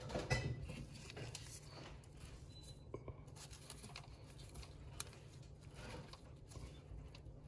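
Faint handling noise of electrical wires being twisted into a twist-on wire connector to join the ground wires: scattered small rustles and clicks, a slightly louder scrape just after the start and a sharp tick about five seconds in.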